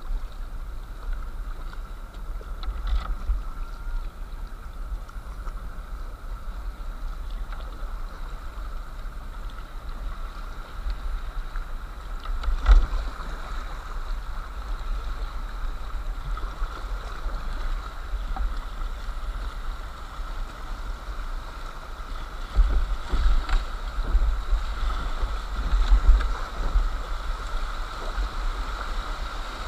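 Shallow river water rushing over a gravel bed with paddle splashes, recorded from a kayak on a small action camera, with wind rumbling on the microphone. There is a sharp knock about halfway through, and from about three quarters of the way in the splashing gets louder and choppier as the kayak reaches rougher water.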